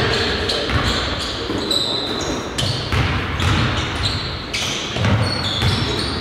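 Basketball game play: a ball bouncing on the court in irregular thumps, with short high sneaker squeaks and players' voices.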